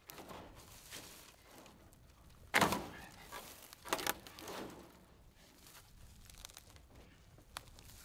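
Wooden bottom rail of a wire-mesh chicken run being pulled up: a loud wooden thunk about two and a half seconds in, a second knock about a second later, with rustling and scraping of wood and wire mesh.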